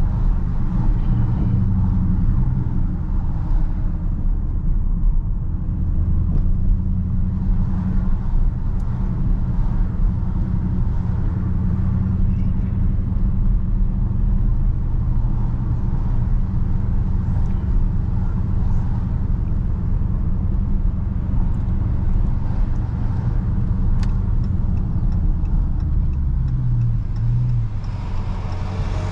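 2019 Dodge Charger Scat Pack's 6.4-litre HEMI V8 running under way while driving, a steady low exhaust rumble with small rises and falls in engine speed.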